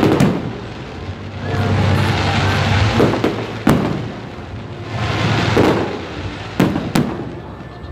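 Fireworks display: about five sharp bangs of bursting shells, the last two close together near the end, with long swells of rushing noise between them.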